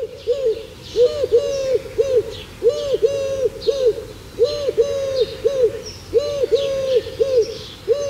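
Eurasian collared dove cooing: a rhythmic run of short, low, hooting coos, with faint higher chirps of other birds in the background.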